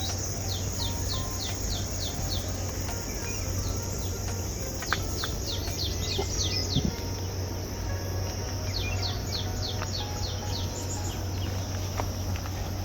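Steady insect drone with a bird repeating runs of short, quick descending notes, about four notes a second, a new run every four seconds or so.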